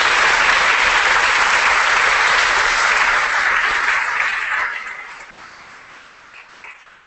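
Audience applauding at the end of a conference talk, loud and steady at first, then dying away over the last couple of seconds.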